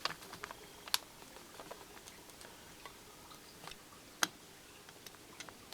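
Faint small clicks and ticks of a screwdriver prying up the cover of a door lock's case, with two sharper clicks, about a second in and just past four seconds.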